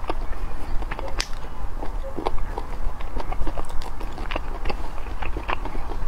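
Close-miked chewing of braised chicken giblets and rice: wet mouth clicks and smacks coming irregularly, several a second.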